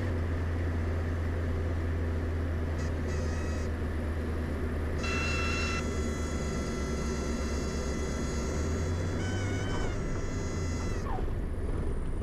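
Diamond DA40's engine and propeller droning steadily in the cockpit during the landing, with high steady tones sounding over it for several seconds in the middle and stopping about a second before the end.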